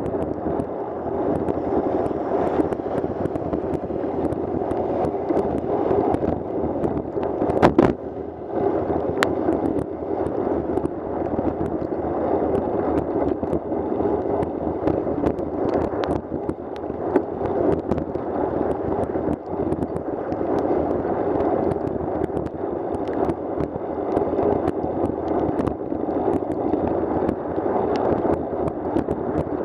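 Steady rushing of a bicycle ride on a rain-soaked road: wet tyre spray and wind on the microphone, with scattered small ticks throughout and one sharper knock about eight seconds in.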